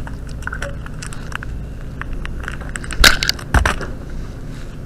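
Rustling and clicking handling noise on a chest-worn pen camera's microphone as the wearer moves, over a steady low hum, with two loud knocks about three seconds in, half a second apart.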